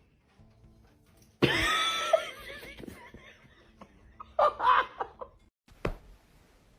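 A person laughing in two bursts, a loud one about a second and a half in and a shorter one about four and a half seconds in, with a sharp click near the end.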